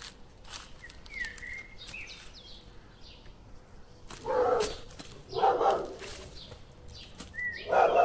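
A dog barks three times in the second half, with gaps of about one and two seconds between barks. Small birds chirp faintly before the barking.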